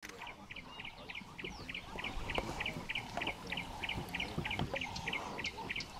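A bird repeating one short, high note over and over at an even pace, about three to four times a second, with other birds chirping now and then. Low knocks and rustles run underneath.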